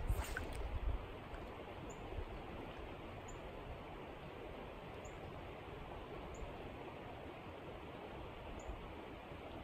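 Creek water flowing steadily over a riffle, an even rushing sound. A few low bumps in the first second, and a faint short high chirp every second or so.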